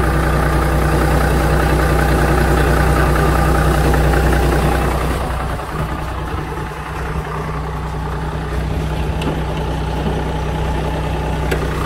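Toyota Land Cruiser HDJ81's 1HD-T turbo-diesel straight-six idling steadily. The sound turns quieter about halfway through.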